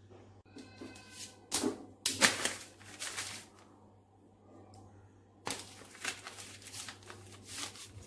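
Newspaper rustling as sheets are changed, with the metal-framed aluminium mesh chimney grease filters being handled and set down on them. The noises come in two spells of irregular rustles and light knocks.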